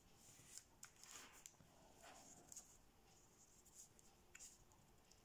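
Faint rustling and creasing of thin kami origami paper under fingertips as folds are pressed flat, with a few soft, irregular crinkles.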